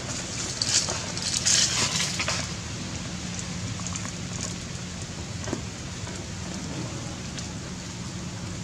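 Steady low background hum with a burst of dry crackling noise between about half a second and two and a half seconds in, then only faint scattered clicks.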